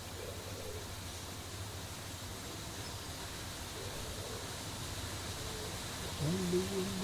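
Quiet outdoor ambience with a low steady hum, and a dove cooing softly a few times. About six seconds in, a voice starts humming a steady low note.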